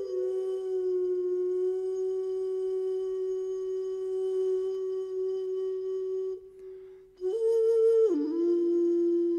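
Background music: a slow solo flute holding long, steady notes. It breaks off briefly about two-thirds of the way through, then returns on a higher note that glides down.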